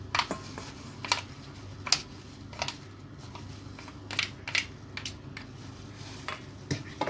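A metal spoon scraping and knocking against a stainless steel bowl while stirring and scooping thick ground shrimp paste, in irregular clicks and scrapes.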